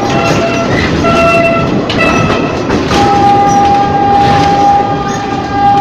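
Ex-JR 203 series electric multiple unit running on the rails: a loud, continuous rumble of wheels and running gear under high, steady whining tones. The tones step between pitches over the first few seconds, then hold one tone from about three seconds in.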